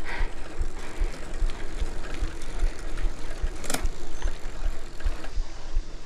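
Mountain bike being ridden: steady rolling noise with low bumps and rattle, and one sharp click about three and a half seconds in.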